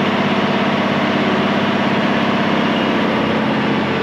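Diesel engine of a DAF XF 530 truck, a PACCAR MX-13 straight-six, running steadily at low speed, heard from outside the cab by the driver's door. A low, even drone with a fast regular pulse.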